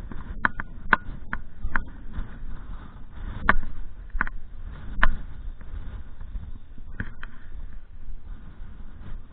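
Wind buffeting the microphone as a steady low rumble, with about ten sharp clicks and knocks scattered through it, most of them in the first two seconds.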